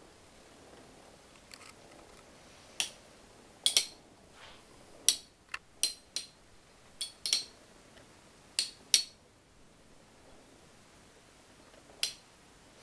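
Two metal-wheeled Beyblades, Cyclone Herculeo and Thermal Lacerta, spinning in a plastic stadium and clashing: about a dozen sharp metallic clinks at irregular intervals, some in quick pairs, with a lull of a few seconds near the end before one last hit.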